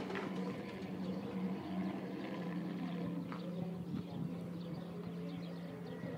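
A steady low hum with scattered faint, short high chirps.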